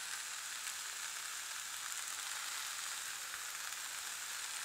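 Carrots, green beans and onions sizzling steadily as they fry in a little oil and margarine in a skillet.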